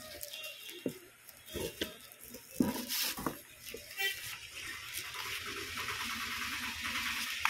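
Folded paper coupon slips rustling as hands rummage through a box and draw one out, with a few light knocks, then steadier rustling as the slip is unfolded.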